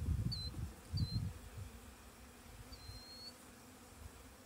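Honey bee swarm buzzing around an open hive as frames are moved, with short high chirps every second or two. Two low rumbles come in the first second.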